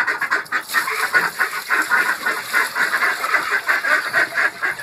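A flock of ducks quacking, many calls overlapping in quick succession.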